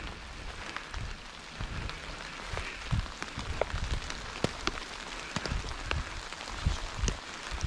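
Rain falling on dry fallen leaves and snow, with many scattered sharp ticks of drops, and footsteps through the leaf litter giving irregular dull thumps.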